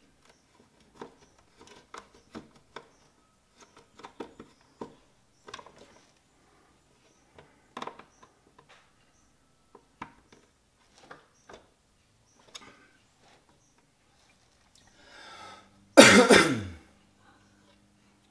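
Screwdriver working terminal screws on a rotary phase converter's wiring blocks: scattered light clicks and scrapes of metal on metal. About sixteen seconds in comes a loud, short cough, the loudest sound here.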